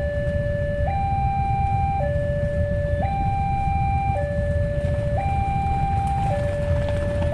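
Two-tone electronic warning alarm alternating between a lower and a higher note, each held about a second, steady in pitch and level, over a low rumble.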